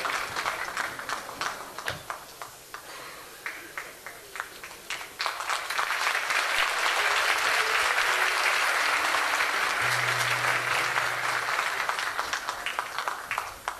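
Audience applauding. The clapping thins to scattered claps, swells back into full applause about five seconds in, and tails off near the end.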